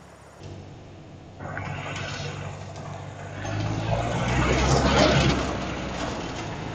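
Kitfox light aircraft's engine running steadily, with a rushing noise that comes in about a second and a half in, builds to its loudest around five seconds, then eases off.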